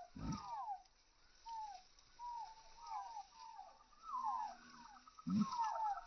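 Birds chirping: many short, falling chirps, two or three a second, with a low thump just after the start and another near the end.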